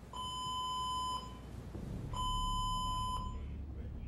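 Ship's fire alarm sounding: a steady electronic beep about a second long, repeated with a second's gap, over a low rumble. It signals smoke detected in a cabin.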